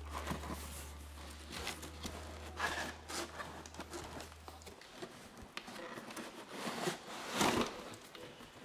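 Cardboard packaging rustling and scraping as a white inner box is worked out of a cardboard shipping box, in irregular strokes with the loudest scrape near the end.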